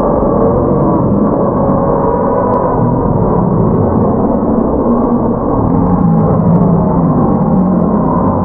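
A troop of baboons screaming and barking in a continuous din, with sliding cries, as they mob an attacking leopard.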